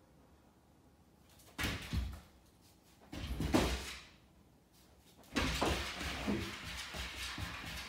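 A Basenji puppy's paws thumping and scrabbling against a plywood board as it jumps at it: two short bursts, then continuous scratching of claws on the wood from about five seconds in as it climbs.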